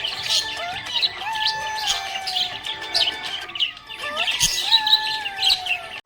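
Budgerigars chirping rapidly and continuously, with a tune running beneath them that has long, sliding melody notes.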